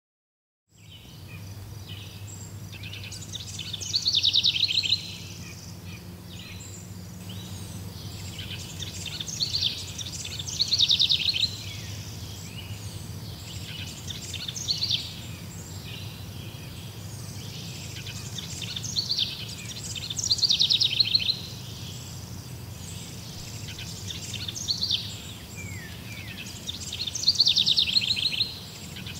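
A songbird singing short, fast trilled phrases, each about a second long and repeated every five to six seconds, over a steady low hum. The birdsong begins about a second in, after silence.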